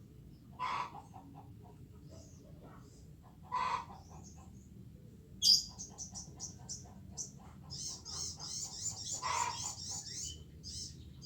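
Chicken calls: three short clucking calls a few seconds apart. About five seconds in, a sharp high burst is followed by a long run of rapid, high-pitched chirps.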